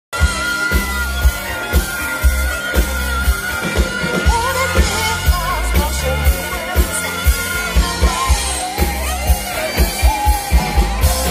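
Live soft-rock band playing through a PA, heard from within the crowd: a lead singer over electric guitars and drums, with the kick drum pulsing about twice a second.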